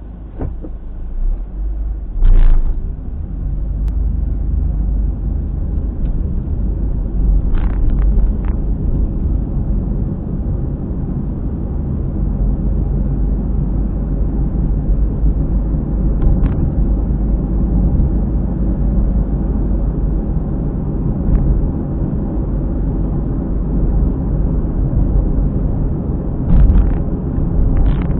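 A car driving, heard from inside the cabin: a steady low rumble from the wheels and road, with a periodic noise from around a tyre that keeps time with road speed, which the owner puts down to a worn hub bearing. A few short knocks cut through it, the loudest about two and a half seconds in.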